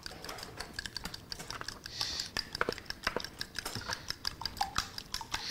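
Salt and pepper grinder being twisted over the pan, a rapid, irregular run of small dry clicks.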